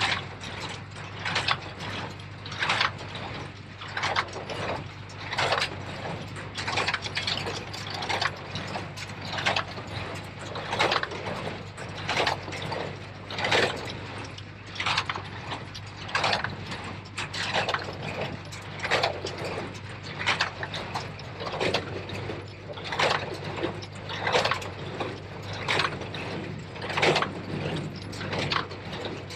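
New Holland 273 small square baler running, its mechanism knocking in an even rhythm of about one and a half strokes a second, over the steady drone of the Case IH JX75 tractor driving it.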